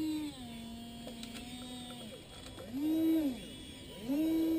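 Electric whine of the RC excavator's arm actuators, upgraded Actuonix linear servos, running in short stop-start moves. Each run rises in pitch as it starts and falls as it stops: a higher whine at the start, a lower steady one until about halfway, a brief burst just after, and another steady whine setting in near the end.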